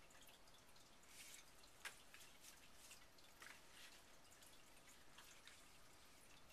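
Faint clicks and light rustling of plastic and cardboard packaging being handled, with one sharper click about two seconds in.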